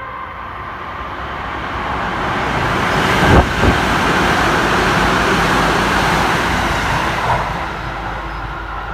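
Tsukuba Express train passing through the station at speed without stopping: a rush of wheel and air noise that builds, holds loud through the middle and then fades. Two sharp thumps come about three and a half seconds in.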